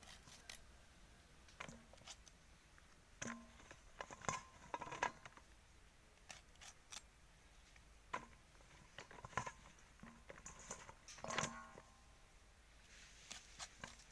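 Fresh flat beans being sliced on a curved boti blade: scattered crisp cutting snaps, irregularly spaced. Several cuts are followed by a short metallic ring as the pieces drop into a steel bowl.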